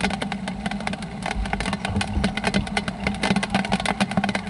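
Rain pattering as dense, irregular drop clicks, with a steady low hum underneath.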